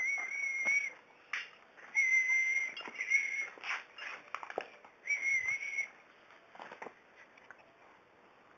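Puppies whining: a string of high, steady whines, each under a second long, with short clicks and scuffs between them, stopping about seven seconds in.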